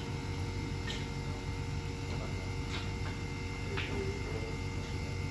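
A few faint, sharp clicks of snooker balls knocking together, a second or two apart, over a steady low hum.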